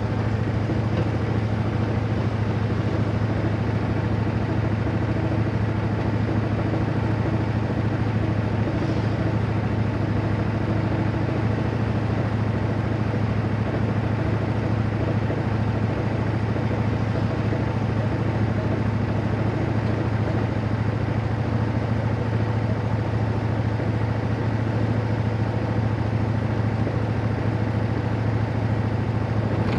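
Railroad motorcar (speeder) engine running steadily under way: a low drone that holds the same pitch and level throughout.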